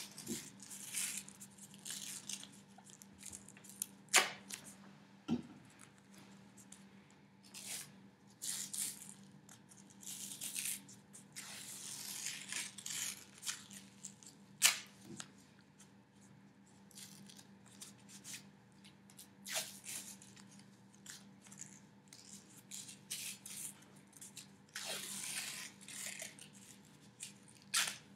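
Athletic tape being pulled off the roll and torn into strips, again and again, while an ankle is taped. A few sharp clicks stand out, the loudest about four and fifteen seconds in.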